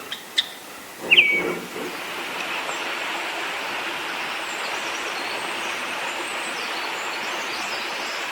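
A short bird call about a second in. Then a steady rush of flowing water, with faint high bird chirps over it.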